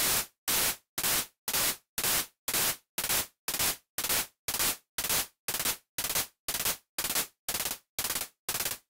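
Short bursts of synthesizer white noise from Massive X, retriggered evenly about twice a second, each gated on and off by a one-shot modulator envelope. As saw-shaped peaks are drawn into the envelope, the start of each burst turns into a quick flutter of spikes, the multi-clap front end of a synthetic 808-style handclap.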